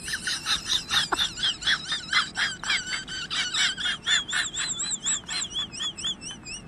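Golden retriever making a fast run of high-pitched, wavering squeaky whines, about five a second.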